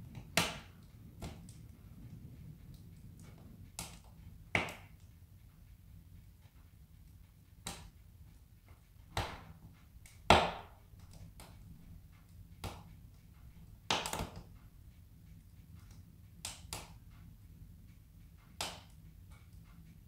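Split wood logs burning in a wood stove, crackling with irregular sharp pops and snaps, the loudest about halfway through, over a low steady hum.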